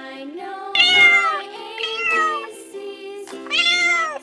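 A domestic cat meowing three times, each meow falling in pitch, over a light children's background tune.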